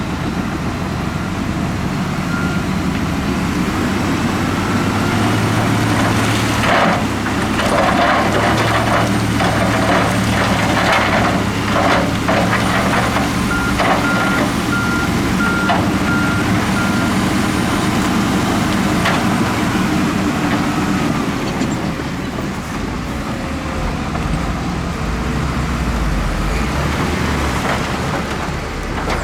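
Diesel earthmoving machinery running steadily under load, with a reversing alarm beeping in an even series at the start and again about halfway through. A run of sharp knocks and clatter in the middle, from rock and steel working against each other.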